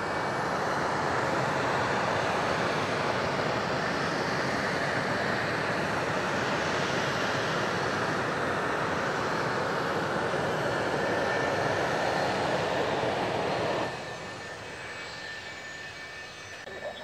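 Twin General Electric J79 turbojets of an F-4EJ Kai Phantom II running at taxi power as the jet rolls past: a loud, steady rush with a thin high whine. About fourteen seconds in the sound drops sharply to a quieter jet whine.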